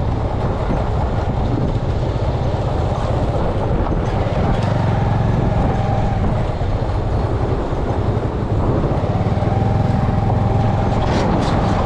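Bajaj Avenger 220 motorcycle running steadily while being ridden on the road, with wind noise on the microphone.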